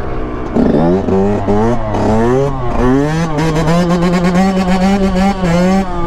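Yamaha YZ125 two-stroke dirt bike engine revving hard. Its pitch climbs in several quick sweeps over the first three seconds, then holds high and steady while the bike is ridden up on its back wheel.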